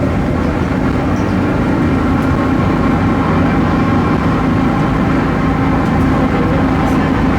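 Volksbus 17.230 OD bus running steadily under way: its MAN D0834 diesel and drivetrain make an even drone with a steady hum, and the differential is growling.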